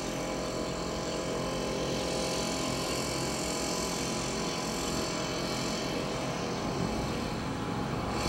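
Backpack leaf blower running steadily at full throttle: a steady engine drone under the rush of the air blast, blowing dust and loose debris out of potholes to clean them before patching.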